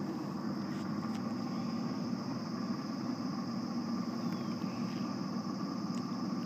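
Bass boat's motor running steadily, a constant low hum as the boat eases slowly forward.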